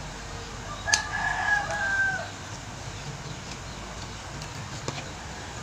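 A rooster crowing once, a single pitched call a little over a second long that falls slightly at its end. A sharp click comes just before it.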